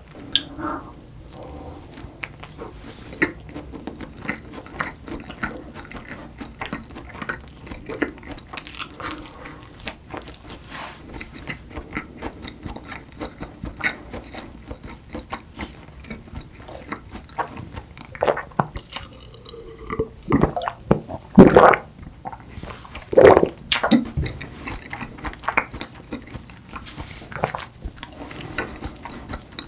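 Close-miked chewing of a mouthful of chocolate cake: soft, wet mouth clicks and smacks. A few louder mouth sounds come about two-thirds of the way through.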